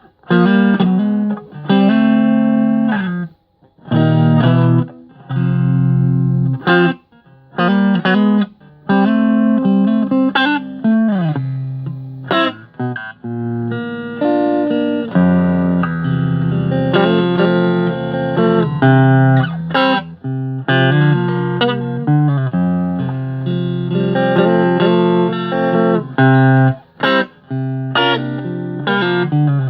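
Agile Telecaster-copy electric guitar played through an amp on a clean Twin Reverb setting with the reverb off: a run of chords and picked phrases with short pauses between them.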